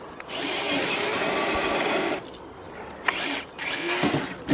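Radio-controlled 1/10-scale crawler's electric motor and gears whining at high revs in two bursts: the first about two seconds long, the second shorter. A few sharp knocks near the end as the crawler tips over on the slope.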